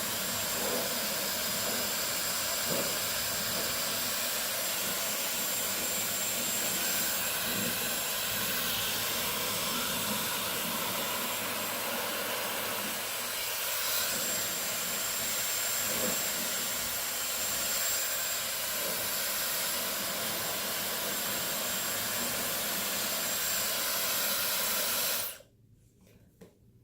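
Dyson Supersonic hair dryer blowing on its third setting: a steady rush of air with a thin high whistle over it. It is switched off near the end and cuts out suddenly.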